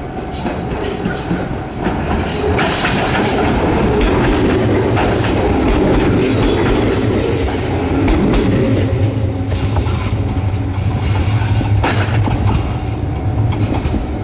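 Echizen Railway electric train running close by, its wheels clacking over rail joints. It grows louder about two seconds in and stays loud.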